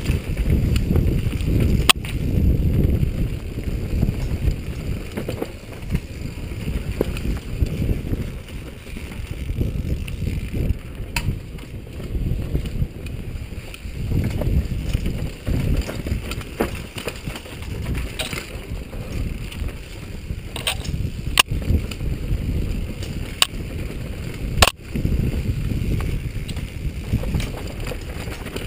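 Mountain bike descending a rough dirt singletrack at speed: a rough, uneven rumble of tyres and frame over the ground mixed with wind buffeting the microphone, and several sharp knocks as the bike rattles over bumps.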